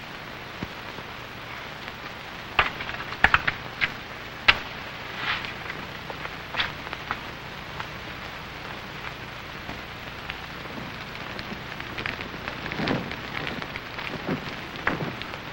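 Fire crackling in an open fireplace grate: a steady hiss with scattered sharp pops, clustered a few seconds in.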